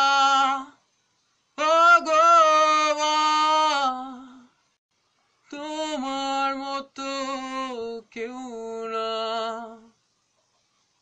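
A man singing a Bengali song unaccompanied, holding long drawn-out, wavering notes in several phrases with short breaks for breath between them.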